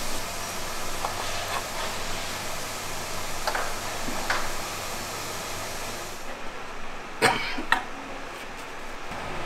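Ceramic kiln furniture being set in place: light clinks of refractory posts against kiln shelves over steady factory background noise, then two sharper knocks about seven seconds in, the loudest sounds here. The background noise drops off about six seconds in.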